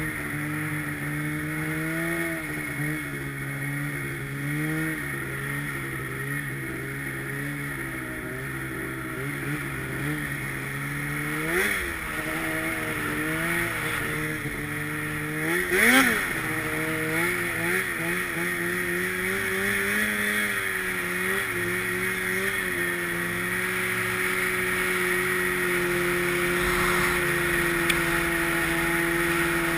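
Snowmobile engine running under way, its pitch wavering with the throttle. It revs up sharply twice, about twelve and sixteen seconds in, then settles into a steady, higher note near the end.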